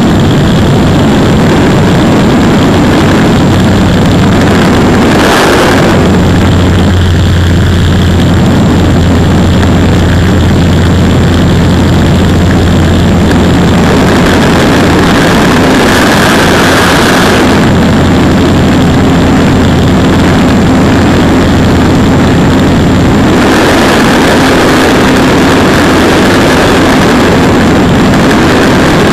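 Light propeller plane's engine droning steadily, heard inside the cabin as a loud, continuous low hum under a rushing noise. The rushing swells briefly twice and again for the last few seconds.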